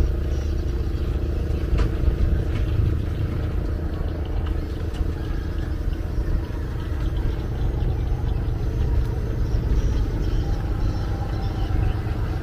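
A riverboat's engine running steadily under way, a continuous low, even drone heard from on board.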